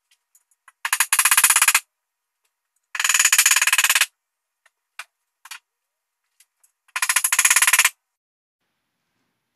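Power impact driver hammering in three bursts of about a second each, a rapid rattle of impacts, with a few light clicks between the bursts.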